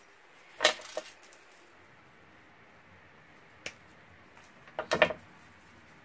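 Craft tools and supplies being handled and set down on a worktable: a short clatter about half a second in, a single tap near four seconds, and a quick cluster of knocks around five seconds as a pair of scissors is laid back down.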